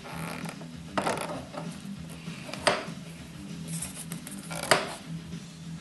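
Hand work on motorcycle front-end parts: three sharp clicks or knocks, about a second in, near the middle and near the end, with quieter rustling and handling noise between, over a low steady hum.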